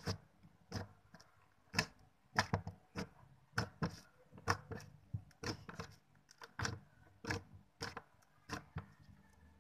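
Sticky slime being squeezed and stretched by hand, making loud, sharp clicks and pops at an uneven pace, about one or two a second.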